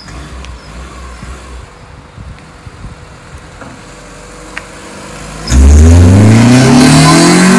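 Honda Civic hatchback's engine running low and quiet, then about five and a half seconds in it comes on suddenly loud and revs up hard, its pitch climbing steadily as the car accelerates past.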